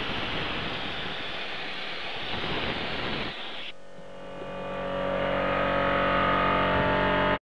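Eastwood soda blaster spraying baking soda on compressed air against a boat's fibreglass hull: a loud, steady hiss that cuts off about halfway through. A steady hum of several pitches then swells up and stops abruptly near the end.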